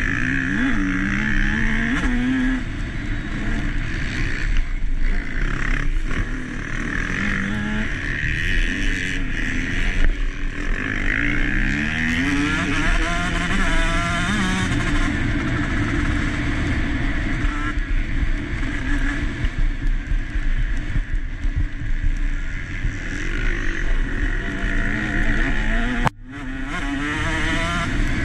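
KTM SX 150 two-stroke single-cylinder engine racing on a dirt track, revving up and dropping back again and again as the rider shifts and throttles through the track. Near the end, the sound cuts out sharply for a moment, then returns.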